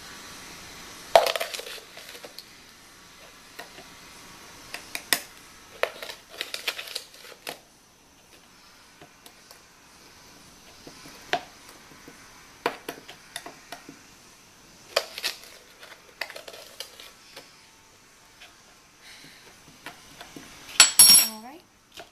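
Kitchen utensils knocking and clinking against a measuring cup and mixing bowl while brown sugar is packed down and tipped in: scattered sharp knocks with quiet scraping between, and a burst of clatter near the end.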